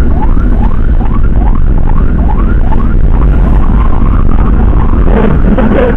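An emergency siren yelping in quick rising sweeps, about three a second, over heavy wind and engine rumble from the moving motorcycle. The sweeps fade near the end.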